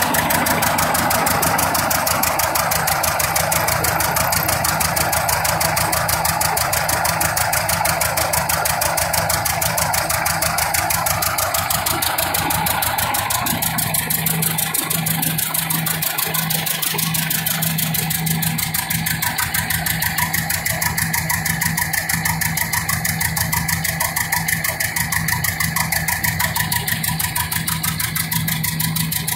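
Hart-Parr 18-36 tractor's two-cylinder engine running steadily with an even beat of firing pulses, driving a flat belt to a prony brake dynamometer that loads it. A steady low hum joins about halfway through.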